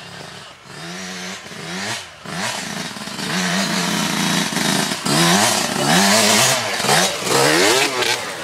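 Dirt bike engine revving up and falling back over and over as the rider works the throttle over rough ground, getting louder as the bike comes close, loudest from about five seconds in.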